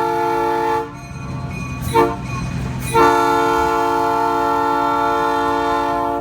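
Train horn sounding a chord of several tones: the end of a long blast, then a short blast, then another long blast, with the locomotive's engine rumbling underneath. It is the long–short–long end of the horn signal given for a road crossing.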